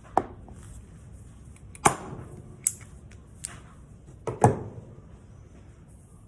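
Several sharp knocks and clicks of hard parts being handled while a pressure washer's rotating nozzle is taken apart, the loudest about two seconds in and near four and a half seconds in.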